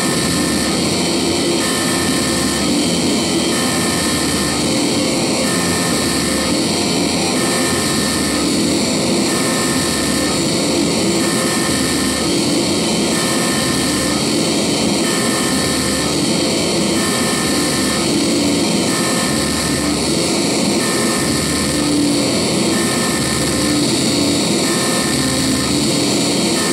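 Harsh electronic noise music: a dense, loud, unbroken wall of noise like a jet engine, with a low throb that pulses on and off about every two seconds.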